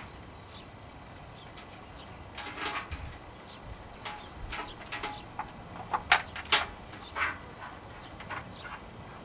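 Scattered clicks and scrapes of a wiring harness and a bent steel coat-hanger hook being worked through the gap under a motorcycle's fuel tank. There is a short run of scraping about two and a half seconds in and a few sharper clicks around six to seven seconds in.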